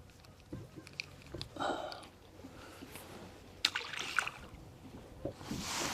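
Light water sloshing around a small boat, with a few small clicks and knocks from handling gear and a short hiss near the end.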